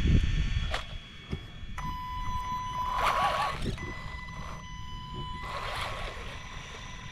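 Small 380 brushed electric motor of an RC buggy whining under throttle: a steady high whine, louder and warbling in two surges about three and six seconds in, while the car barely moves. The owner suspects the motor burnt out. A few thumps and clicks come first as the car is set down.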